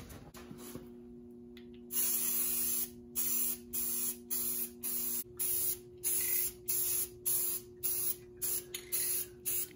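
Aerosol spray-paint can spraying a trailer axle in a quick series of short hisses, about two a second, starting about two seconds in.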